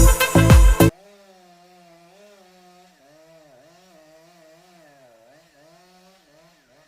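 Loud music with a heavy beat that cuts off suddenly about a second in, followed by a faint, wavering tone that slowly rises and falls in pitch.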